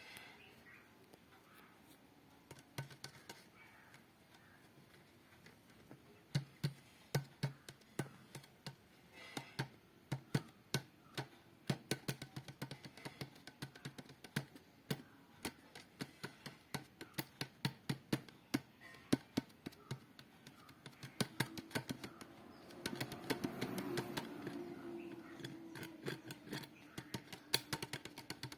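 Many sharp, irregular clicks and taps from a bottle being handled, with a faint low hum swelling in about two thirds of the way through.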